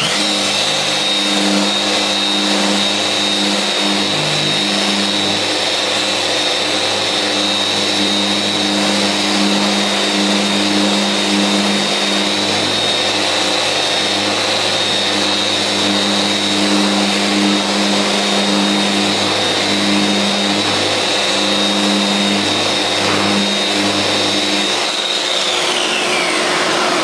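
Festool Rotex RO 125 dual-action sander running in random-orbit mode with 180-grit paper, sanding a block of purpleheart, while a dust extractor draws through the hose. There is a steady high whine over the sanding rush, with a lower hum that comes and goes as the pad works the wood. Near the end the whine winds down as the sander is switched off.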